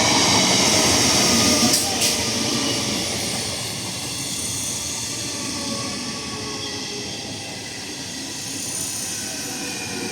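Express passenger train running past at speed: a loud rush of wheels on rail, with two sharp clicks about two seconds in, easing to a steadier rumble and hiss.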